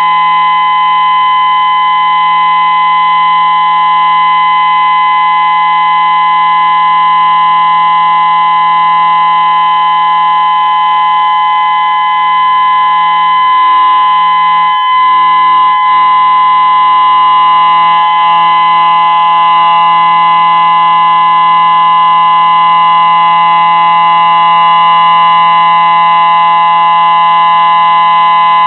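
Whelen 2016 electronic outdoor warning siren sounding a loud, steady tone that holds one pitch throughout, as the alert signal of a scheduled siren test. There is a brief dip in level about halfway through.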